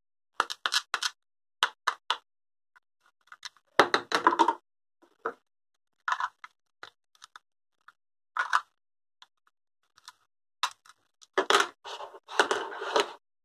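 Hard plastic toy pizza slices clicking and tapping against each other as they are handled. There are a few short scraping rustles, a longer one about four seconds in, and a cluster near the end.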